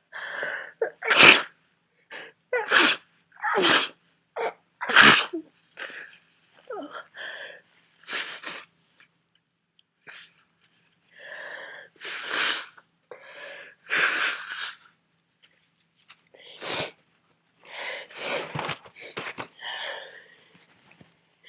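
A person with a heavy cold sneezing again and again, unstifled: a long run of loud, sharp sneezes with quieter breaths between them and a short lull near the middle.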